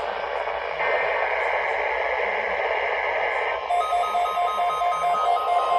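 Weather radio receiving a NOAA Weather Radio weekly alert test over static: a raspy, buzzing data tone sounds for about three seconds, then just past halfway gives way to a rapid, evenly pulsed beeping alarm.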